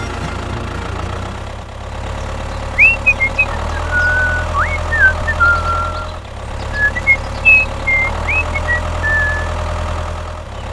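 An engine running steadily at idle, with a constant low hum. Short high chirps come and go through the middle.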